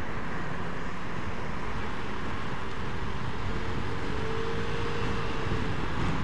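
Steady wind and road noise from riding a motor scooter in traffic, with the engine running underneath. A faint steady whine comes in about halfway through and fades a couple of seconds later.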